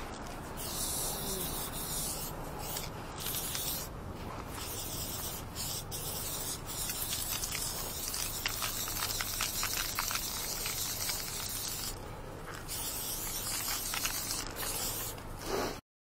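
Aerosol spray paint can spraying onto a corrugated metal fence in long hissing passes, broken by brief pauses, three times. The sound cuts out suddenly just before the end.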